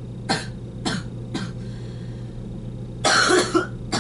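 A man coughing: three short coughs about half a second apart, then a longer, harsher fit of coughing near the end, with one more short cough at the close.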